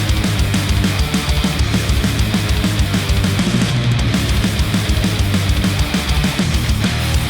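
Instrumental heavy-rock music with distorted guitar and a fast, driving kick drum, played back through Sennheiser open-back headphones and picked up by microphones at the earcup.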